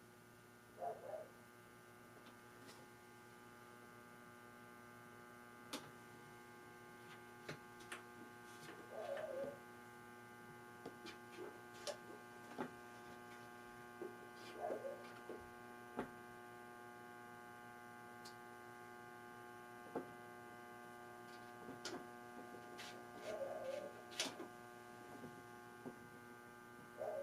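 Vintage Sound Electronics 505R tube guitar amp, freshly powered up with nothing plugged into it, giving a faint steady mains hum through its speaker. A few light clicks and brief muffled sounds occur now and then.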